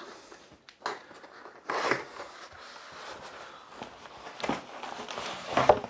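A long cardboard box being opened and the paper wrapping inside handled: scraping and rustling in several short bursts, the loudest near the end.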